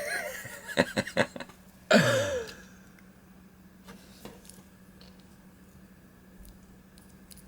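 A few light clicks of a metal watch bracelet being handled, then a person's short hum falling in pitch, then faint occasional clicks over a steady low hum.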